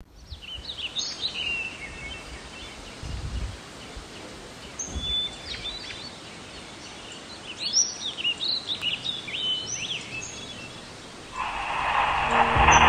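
Several small birds chirping and calling in short slurred notes. About eleven seconds in, a steady hiss of radio static starts and grows louder as a portable radio is switched on and tuned.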